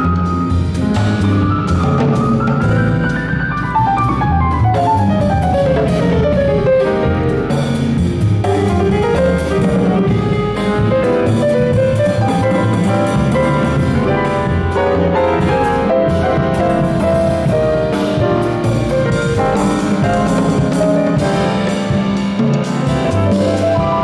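Instrumental jazz-choro quartet playing a bolero: ten-string bandolim, piano, double bass and drum kit together. Quick descending melodic runs come a few seconds in, over a steady bass line and drums.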